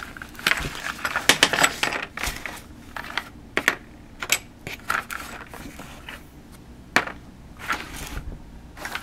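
Hands rummaging through a Monopoly game box: paper play money rustling and small metal game tokens clicking against each other, in irregular bursts of clicks and rustles.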